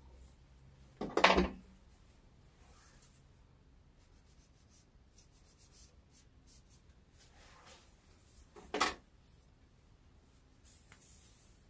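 Quiet handling noises: faint rubbing and rustling, with two brief louder bumps, one about a second in and one near nine seconds.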